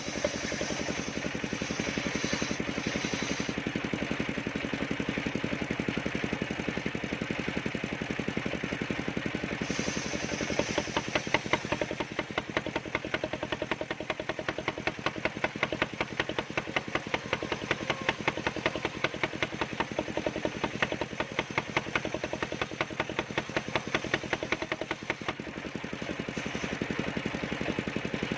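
Engine of a homemade portable circular sawmill running steadily. Through the middle stretch it gets louder, with a fast, even pulsing.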